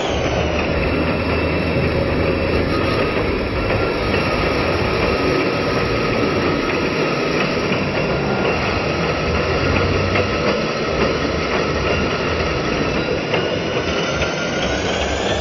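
Metal lathe running steadily, a continuous mechanical drone with faint high steady tones over it.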